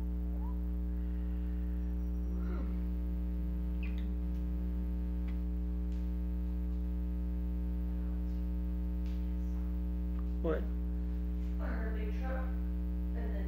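Steady electrical mains hum, with a single short click about ten and a half seconds in.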